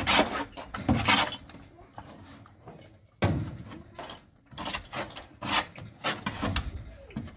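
A series of irregular knocks and clatters, about a dozen, with quieter scraping and rustling between them.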